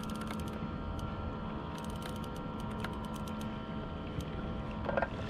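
Spinning fishing reel clicking in quick ticking runs while a hooked fish is played from a kayak, over a steady low hum, with a brief louder sound near the end.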